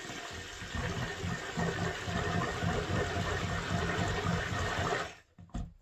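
Stick blender running in a small pitcher of cold-process soap batter: a steady motor hum with liquid churning, blending the batter to thicken it. The blender cuts off about five seconds in, followed by a short knock.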